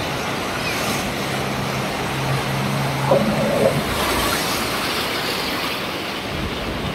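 Sea-Doo jet ski engine running with a steady hum over the wash of breaking surf. Just before four seconds in the hum drops away and a rush of spray and water takes over as the craft crashes through a wave.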